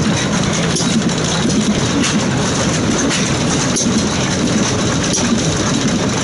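Large early-1900s La Fourmi stationary gas engine, built by Van Eecke-Gheysens of Courtrai, Belgium, running steadily with a dense mechanical clatter and faint knocks roughly once a second.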